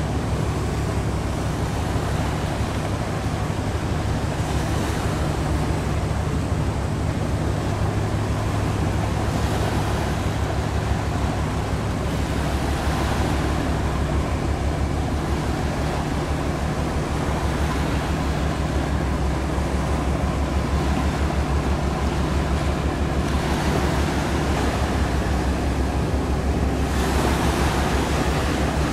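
Tugboat engine running with a steady low hum, under the rush of water and wind noise on the microphone.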